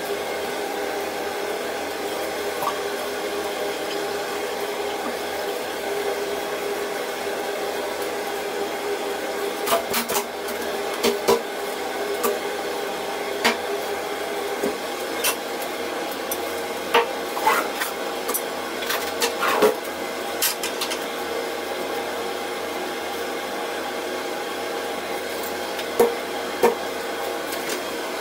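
Kitchen extractor hood fan running steadily. Over it come scattered clinks and knocks of tableware, a plate, a glass, cutlery and a jar, being set down on a wooden table: a cluster in the middle stretch and two more near the end.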